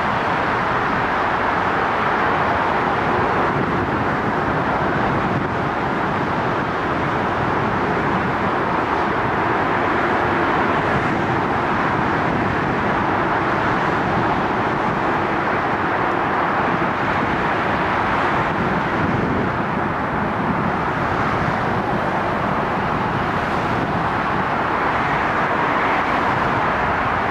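Steady distant road-traffic noise, an even rush with no swell or single passing event standing out.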